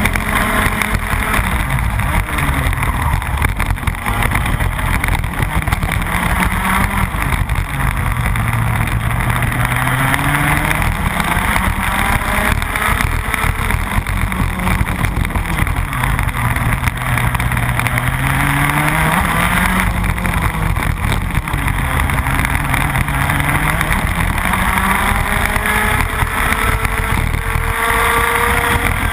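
Rotax Max 125 cc two-stroke kart engine racing at full throttle. Its pitch climbs along the straights and drops as it slows for the corners, several times over.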